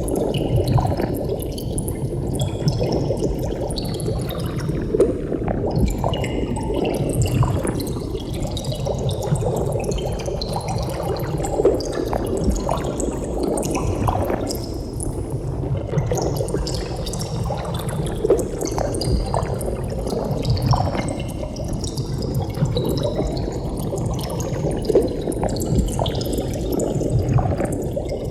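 Water bubbling: a dense, steady stream of small bubbles popping and gurgling, with a hollow colouring that slowly sweeps up and down.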